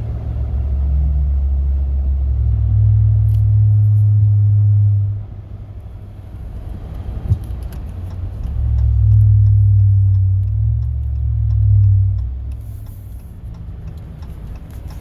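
Low droning hum inside the cab of a 2019 Ram pickup, the vibration and drone the owner has had since new and calls a well-known, documented problem. The drone swells up twice for a few seconds each time and eases off between, with a single click in the lull.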